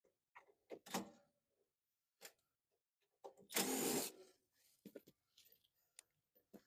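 Power driver briefly spinning out a sheet-metal screw in a short burst of under a second, with scattered clicks and knocks of the tool and screw against the metal panel.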